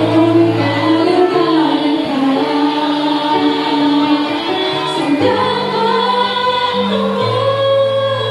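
A worship song sung by a small group into microphones, women's voices leading, over an accompaniment of held low notes that step to a new pitch every second or so.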